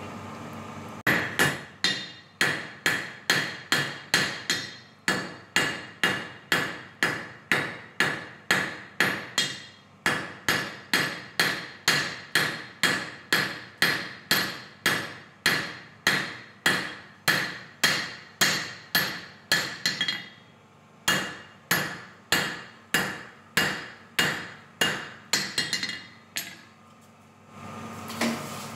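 Hand hammer forging a red-hot knife blank held in tongs on an anvil. The blows come at about two a second, each with a bright ring, with a short pause about twenty seconds in, and they stop near the end. A steady hum is heard before the hammering starts and again after it stops.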